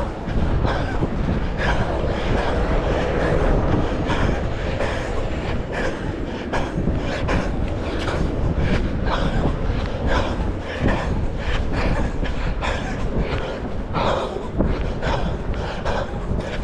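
Wind buffeting the microphone as a steady low rumble, with the even footfalls of running, about three a second, on top.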